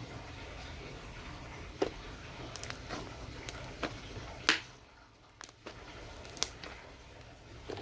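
Scattered small clicks and taps from handling slime-making materials, the loudest about four and a half seconds in, over a low steady hum.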